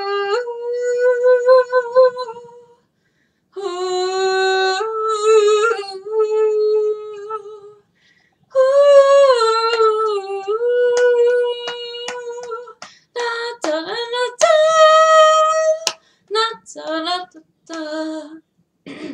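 A woman singing unaccompanied: long held, gliding notes in phrases with short silent breaths between them, then shorter, separate notes near the end.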